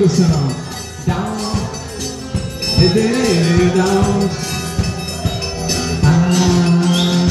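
Live band music: a voice singing a slow melody in long, gliding held notes over drums and hand percussion keeping a steady rhythm.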